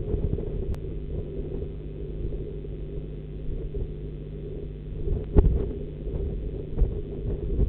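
Steady low rumble and hum from an outdoor nest-box webcam's microphone, with a short click about a second in and a dull thump about five seconds in.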